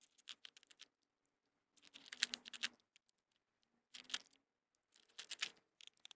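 A cat crunching dry kibble: four bursts of quick, sharp crunching clicks, the longest about two seconds in.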